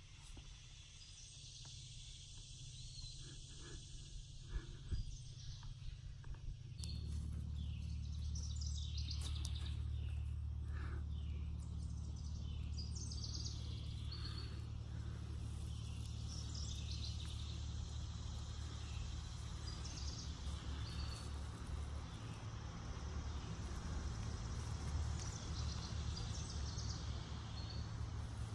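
Woodland ambience with birds chirping and insects. About seven seconds in, a steady low rumble sets in and stays as the loudest sound.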